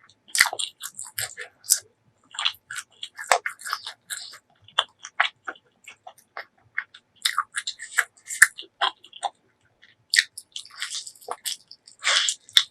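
Close-miked eating sounds: a run of short, irregular bites and chews, with a couple of brief pauses.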